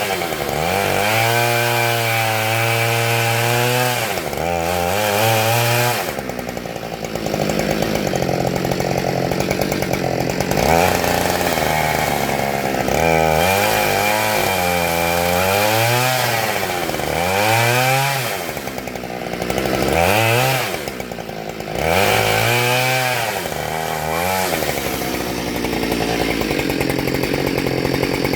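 Husqvarna 572 XP two-stroke chainsaw with a ripping chain cutting lengthwise along a black locust log. Its engine pitch repeatedly drops under load and climbs back, then holds steadier near the end.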